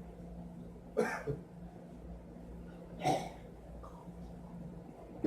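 A young man coughing hard twice, about one and three seconds in, with another cough starting at the very end. The coughing is put on, part of faking coughing up blood.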